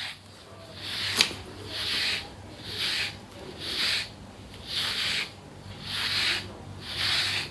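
Rhythmic rubbing strokes, about one a second, each a short hiss, with one sharp click about a second in.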